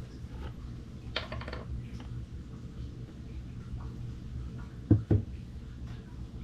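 Metal engine parts being handled on a workbench: a short rattle of light clinks about a second in, then two sharp knocks in quick succession about five seconds in, over a steady low hum.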